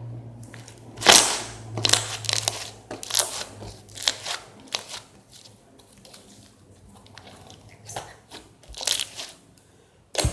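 Thick slime being squeezed and worked by hand, giving off clicky, crackling pops at irregular intervals, with a faint low hum underneath.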